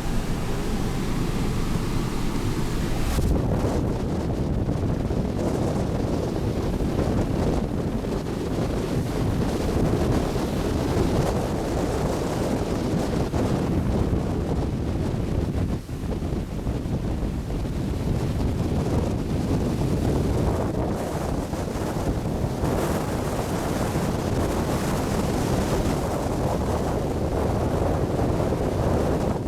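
Strong wind buffeting the microphone over the rush of storm-driven waves on a river, with a faint steady hum under it for the first three seconds.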